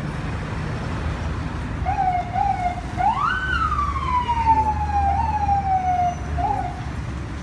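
Emergency vehicle siren: a couple of short chirps about two seconds in, then one long wail that rises quickly and falls slowly over about three seconds, and a last short chirp near the end, over a low steady rumble of traffic.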